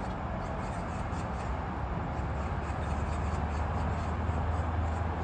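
Steady city ambience from among high-rise blocks: a low hum of distant traffic with an even wash of noise over it, and faint short high chirps scattered through.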